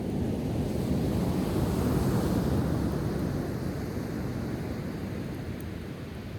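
A sea wave breaking and washing up the shore: a rushing surge that builds to its loudest about two seconds in, then slowly recedes.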